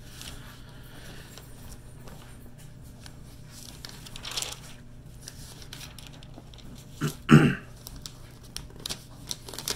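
Paper Bible pages being leafed through and rustled while a passage is searched for, with a short louder sound about seven seconds in, over a faint steady hum.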